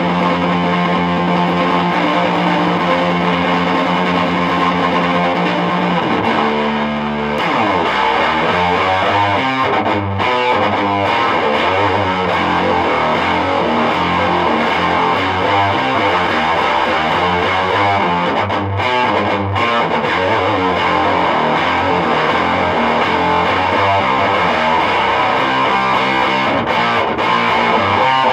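Electric guitar played with a pick through an amplifier: a chord held ringing for about six seconds, then a slide down in pitch into busy riffing with quick notes and chords.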